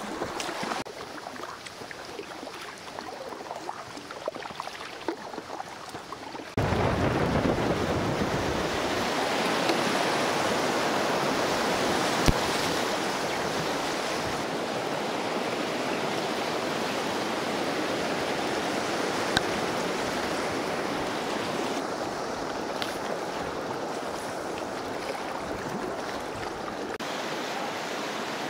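Shallow river riffle rushing and splashing around a kayak, a steady loud rush of water. For about the first six seconds there is only quieter water noise from the slow current, then the rushing water sets in suddenly and stays.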